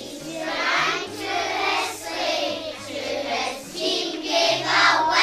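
A group of young children singing together over backing music with a stepping bass line.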